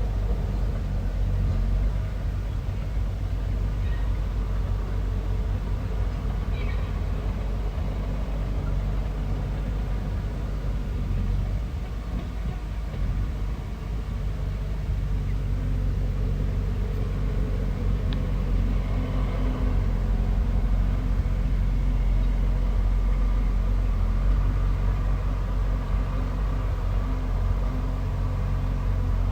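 Bulldozer's diesel engine running steadily with a low rumble, easing off briefly about halfway through and then picking up again.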